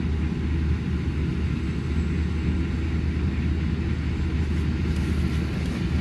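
Combine harvester running steadily as it cuts across the field, heard from a distance as an even low rumble.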